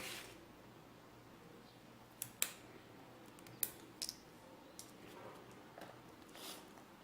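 Scattered small clicks and taps, with a soft rustle at the start and another near the end: craft materials such as sticks and paper being handled at a table.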